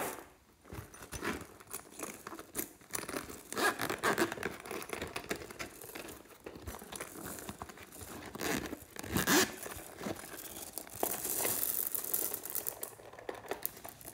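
A glitter-and-rhinestone covered purse being handled and opened, with irregular scratching and rustling of its sparkly surface and zip. Near the end there is a longer scratchy stretch as its contents of glitter and beads spill out.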